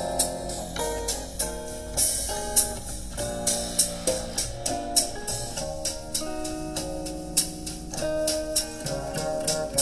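Recorded music with plucked guitar and a drum kit, played back through a vacuum-tube hi-fi system as a listening test of its valves. Steady drum hits keep time under the guitar notes.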